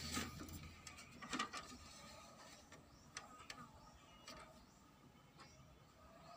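Epson L3210 ink tank printer's mechanism running faintly, with scattered soft clicks and a faint steady whine, as it starts up a nozzle check.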